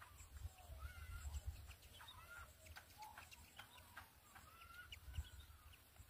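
Black bird at a nest giving short, slurred calls, one about every second, over a low rumble.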